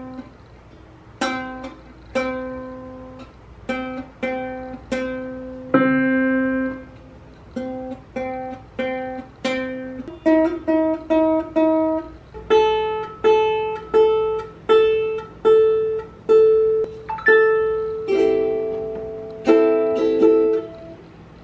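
Ukulele being tuned: single strings plucked one at a time, roughly once a second, each note ringing and dying away while the pegs are turned. The notes step up in pitch partway through as she moves on to the next string.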